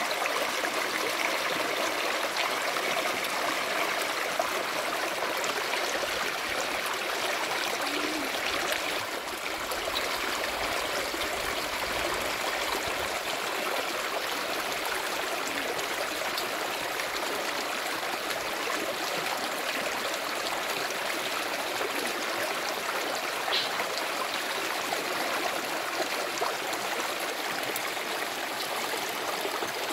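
Stream water running over rocks: a steady rushing and trickling that holds even throughout.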